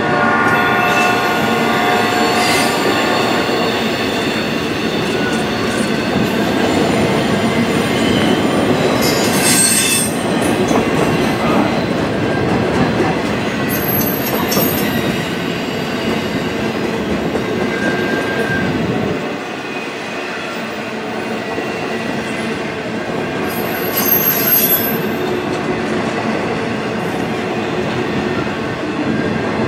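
Intermodal freight cars carrying highway trailers rolling past: a steady rumble and clatter of steel wheels on rail, with squealing wheels strongest in the first few seconds and brief high hissing squeals twice later on.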